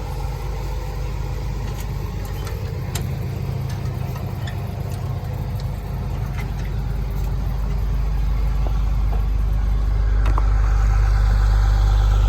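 International 1460 combine's diesel engine idling steadily while it stands for a moisture check, growing louder toward the end as it gets closer.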